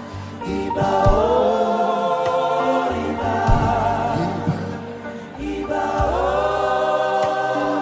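Slow gospel worship music: a choir sings long held chords over a low sustained bass, with new phrases swelling in about a second in and again near the end.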